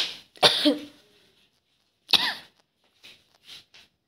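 A person coughing briefly, twice: short breathy bursts about half a second in and again about two seconds in. A few faint light taps follow.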